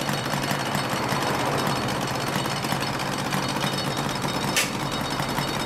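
Two-stroke 250 cc sport motorcycles idling with a fast, even beat. A single sharp click comes about four and a half seconds in.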